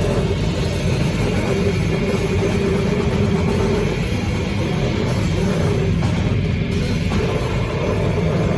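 Noise doom/sludge metal: a dense, heavily distorted wall of sound with drums, running steadily and loud throughout.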